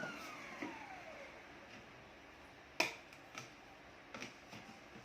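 Olsenmark vacuum cleaner motor winding down after being switched off, its whine falling steadily in pitch and fading out over the first second or so. A single sharp click follows a little under three seconds in.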